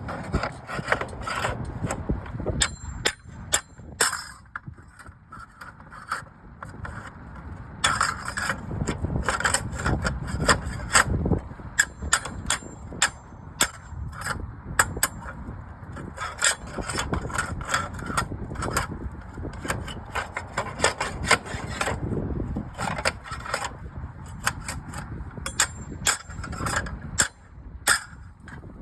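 Hand work on slate roofing: scraping and rubbing broken up by many sharp knocks and clinks at irregular intervals.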